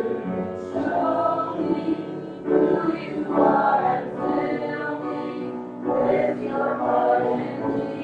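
A group of voices singing a worship song in sustained phrases.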